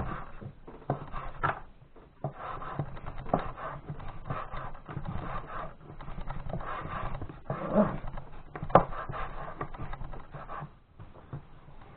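Kitchen knife slicing boiled chicken gizzards on a wooden cutting board: irregular sharp knocks of the blade on the board, over a rough, breathy rustle.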